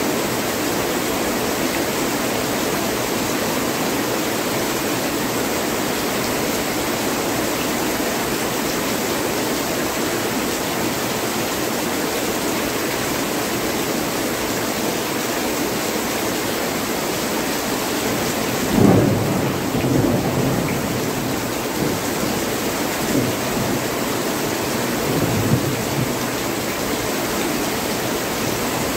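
Heavy rain pouring steadily. About two-thirds of the way in, a clap of thunder breaks in and rumbles on in a few smaller swells for several seconds.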